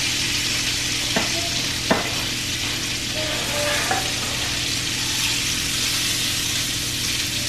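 Sausage sizzling steadily as it fries in a stainless skillet on an electric stove, with a spatula turning and scraping it and two sharp knocks of the spatula against the pan about one and two seconds in.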